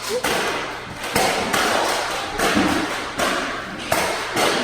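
A string of sudden thumps, about one a second, each with a short noisy tail.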